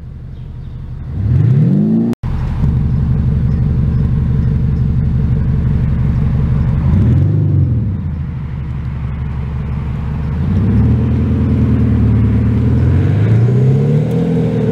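BMW 530d F10's three-litre straight-six diesel, played through an aftermarket active sound booster whose two sound actuators give it a V8-style exhaust note. Revs fall and then rise before a short cut about two seconds in. It then runs steadily, with a brief rev blip about seven seconds in, and the revs climb twice as the car pulls away.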